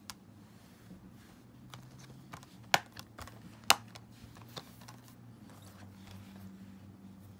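Plastic Blu-ray cases being handled: two sharp clicks about a second apart near the middle, with lighter taps and knocks around them, over a faint low hum.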